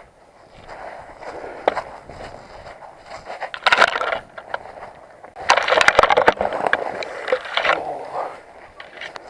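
Close rustling, scraping and crunching as an airsoft player moves with the camera on their kit: footsteps and gear rubbing near the microphone. A short louder burst comes about four seconds in, then a longer stretch from about five and a half to eight seconds.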